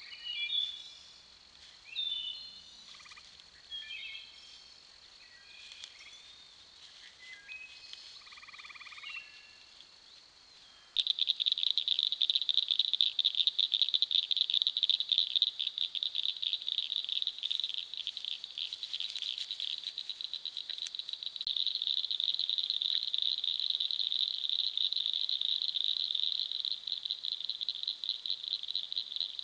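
Evening bird calls, short varied notes over a faint steady high insect tone; then, about eleven seconds in, a loud, continuous night chorus starts abruptly: a rapid, high-pitched pulsing trill that runs on without a break.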